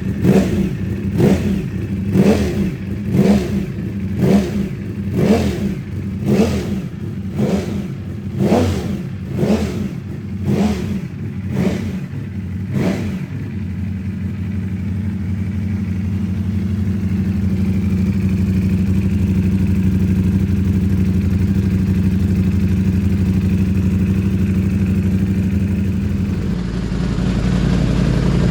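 Ducati Panigale V4S V4 engine through a Termignoni exhaust with the dB killer fitted, blipped in short quick revs about once a second, about a dozen times, then settling into a steady idle.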